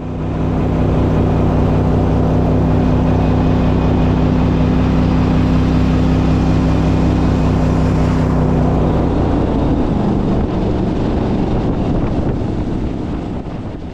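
Boat's outboard motor running steadily at speed, with a rush of wind and water over it. The engine note shifts slightly about nine or ten seconds in.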